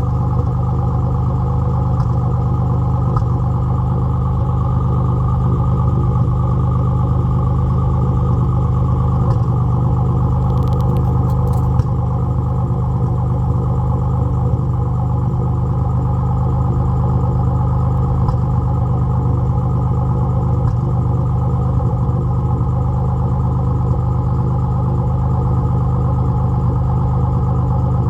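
Nissan 300ZX (Z31) 3.0-litre V6 running steadily at an even level, with the misfire it has before a top-end rebuild.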